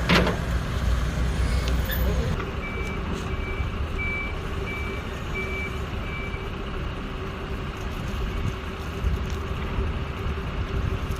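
A vehicle's engine running with its reversing alarm beeping six times at an even pace, starting a couple of seconds in. A sharp knock comes right at the start.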